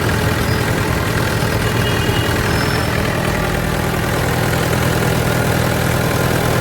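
Mahindra 475 DI tractor's four-cylinder diesel engine idling steadily.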